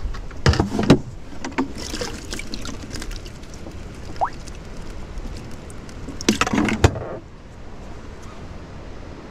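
Lid of an insulated minnow bucket knocking and clattering as it is opened, then again about six seconds later as it is shut, while a minnow is dipped out with a small net.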